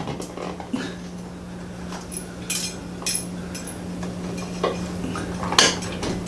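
Ceiling fan wiring and hardware being handled as wires and plastic wire nuts are stuffed up into the mounting bracket: scattered clicks, rattles and light clinks, the loudest about five and a half seconds in. A steady low hum runs underneath.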